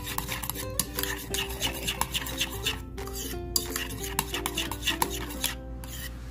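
Metal spoon stirring a thick mayonnaise-based sauce in a bowl, with rapid clicks and scrapes of the spoon against the bowl. Background music with a melody plays underneath.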